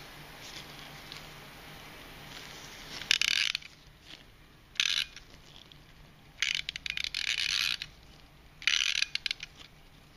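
Winding key of a vintage German mechanical clock being turned in short strokes. Each stroke gives a burst of rapid ratchet clicking from the mainspring's click and ratchet wheel. The bursts start about three seconds in, and the longest runs over a second.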